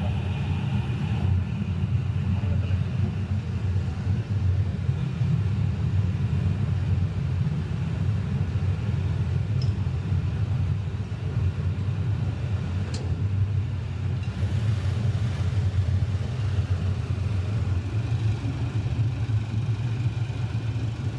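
Steady low rumble of machinery running, with a single short click about thirteen seconds in.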